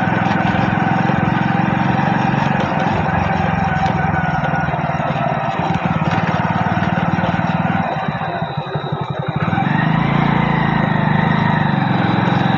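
Motorcycle engine running steadily under way. Its note drops away briefly about eight seconds in, then picks up again.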